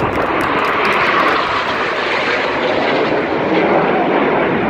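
Jet noise of BAE Hawk T1 display jets flying past, a loud, steady roar.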